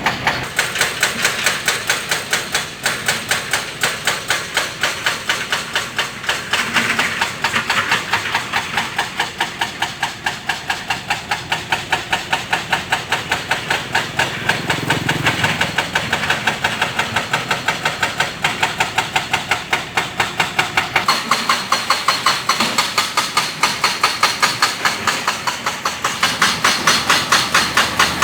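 Excavator at work: its engine runs steadily under a long train of rapid, regular hammer-like knocks, about three to four a second.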